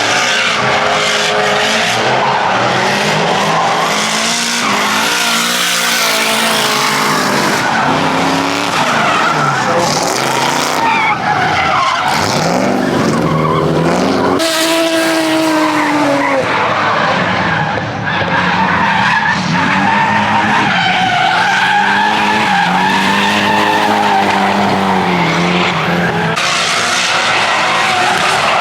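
Drift car on track, its engine revving up and down repeatedly with tyres skidding and squealing through the drifts.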